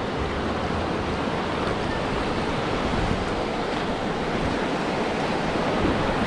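River water rushing over a shallow, rocky riffle, heard from a drifting raft: a steady rush of whitewater.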